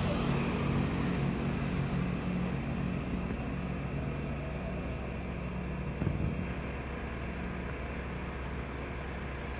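An engine running steadily at idle, a low hum that slowly fades, with a single short knock about six seconds in.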